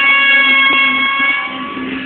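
A horn sounds one steady, high, held blast of about a second and a half, over a motorcycle engine running at a steady pitch underneath; there is one short click partway through.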